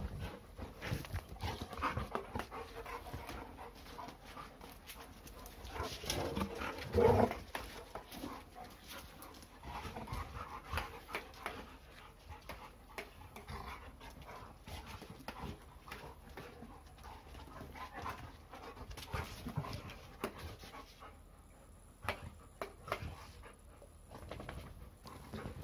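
Young golden and Labrador retrievers play-wrestling: panting and scuffling, with many small clicks of claws and paws on pavement and a louder burst about seven seconds in.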